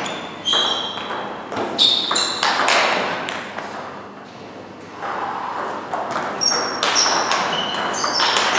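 Table tennis rally: the celluloid ball clicking off the rubbers and bouncing on the table, each hit a short high ping. The hits come about every half second for the first three seconds, stop for about two seconds, then start again with a new rally.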